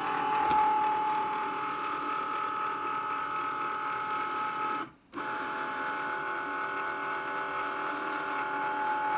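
Cricut Maker cutting machine running its motors with a steady whine, in two runs broken by a brief pause about five seconds in. This is the running noise that the owner of the brand-new machine reports as an abnormal knocking when the carriage moves back and forth.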